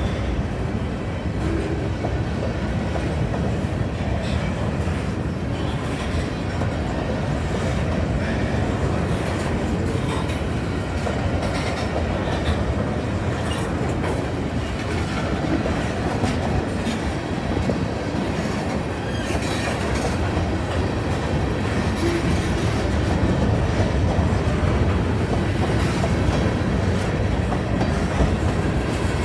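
Freight train covered hopper cars rolling past at close range: a steady rumble of steel wheels on rail, with scattered short clicks and clanks.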